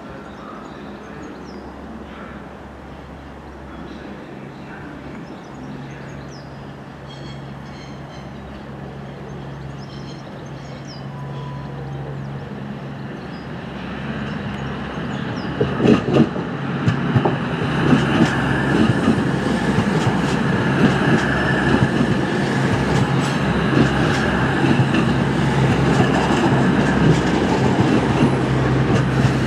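Class 220 Voyager diesel multiple unit approaching and passing, its underfloor diesel engines humming steadily and growing louder as it nears. From about halfway the rumble thickens, with sharp clicks as the wheels run over rail joints and points while the carriages go by close.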